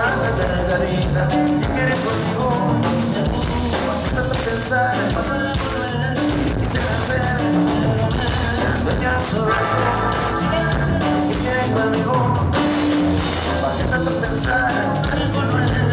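Norteño band playing live: diatonic button accordion over guitar and drum kit.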